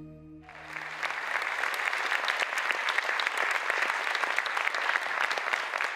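Audience applauding, starting suddenly about half a second in and holding steady, over the fading last notes of music.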